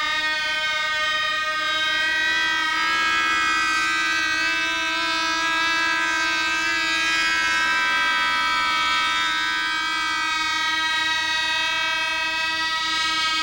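Engine of a home-built VTOL model drone in flight: a steady, high-pitched buzzing whine, its pitch wavering slightly as the craft flies past.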